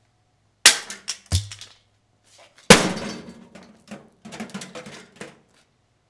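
Three hard blows from a golf club against a microwave oven's door, the third the loudest and one with a dull thud, followed by a scatter of smaller clinks and rattles of broken glass and plastic pieces.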